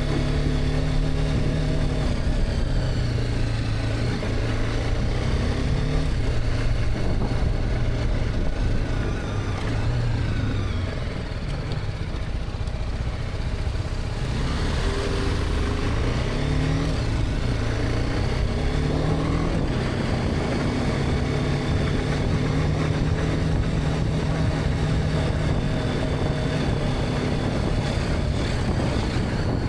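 BMW G310R's single-cylinder engine under way, its revs rising and dropping in steps through the gears. It eases off and quietens just before the middle, pulls up again with rising revs, then settles into a steady cruise.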